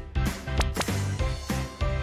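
Upbeat background music with a steady drum beat.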